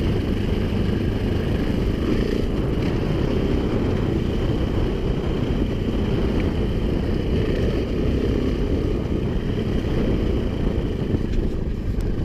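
KTM 500 EXC enduro motorcycle's single-cylinder four-stroke engine running at a steady cruising speed, with a dense low rumble from riding over the gravel track.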